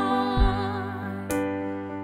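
A woman's voice singing a held note with vibrato, accompanied by a keyboard playing piano chords, struck twice.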